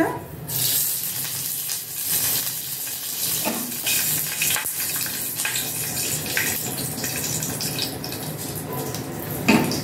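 Fresh curry leaves sizzling and crackling in hot oil in a small aluminium pan: the tempering (tadka) stage. The sizzle starts about half a second in and keeps on, and a short louder sound comes right at the end.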